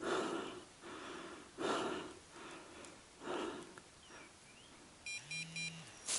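Heavy breathing while walking, a strong breath about every second and a half with weaker ones between. Near the end a handheld GPS dog-tracking unit gives three quick electronic beeps, an alert that the dog is pointing.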